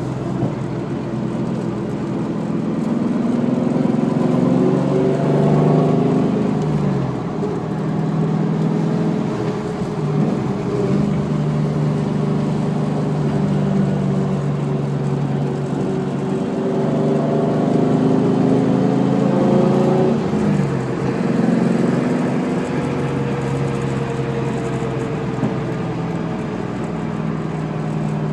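Car on the move with a whine that rises and falls in pitch as it speeds up and slows down, twice. The owner suspects the S60 rear end, though he thinks it could also be the tires or a wheel bearing.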